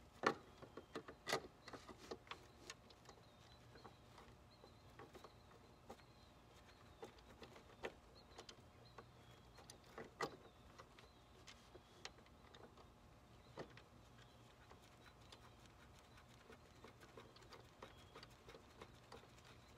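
Faint, scattered light clicks and taps of hand tools and metal parts being handled on a riding lawn mower during a repair, a cluster in the first couple of seconds and another around ten seconds in.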